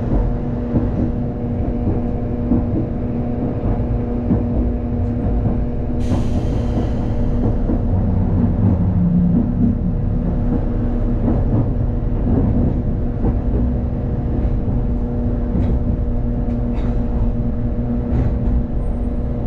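Streetcar running along the street, heard from inside the car: a steady rumble of wheels on rail with a steady hum underneath. A brief hiss comes in about six seconds in.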